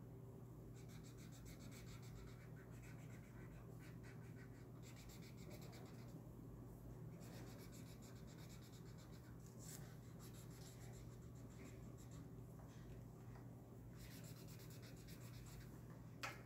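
Faint scratching of a yellow marker tip on paper as a drawing is coloured in, fast back-and-forth strokes in spells of one to three seconds with short pauses between. A single sharp tick comes near the end.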